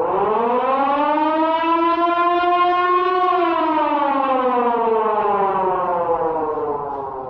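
Civil defense siren wailing: its pitch rises smoothly over the first three seconds or so, then falls slowly through the rest.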